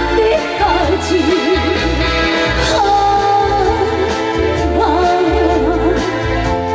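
Live trot song: a woman singing with heavy vibrato over the band's accompaniment with a steady bass beat, heard through the concert's PA.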